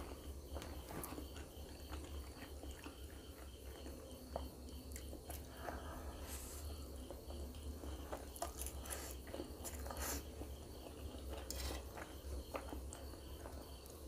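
Close-miked eating of instant noodles: slurping noodles in and chewing them, with many short wet mouth clicks and smacks and a longer slurp about six seconds in.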